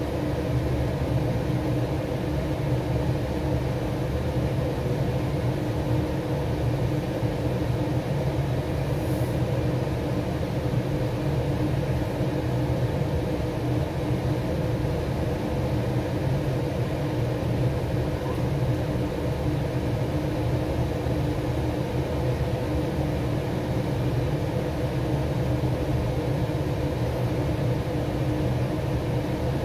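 Kitchen fan running with a steady low hum and a few faint steady tones above it.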